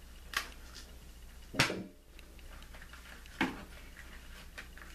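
Cabbage leaves being handled and folded on a plastic cutting board: a small click, then two short dull knocks against the board, with soft leaf rustling between.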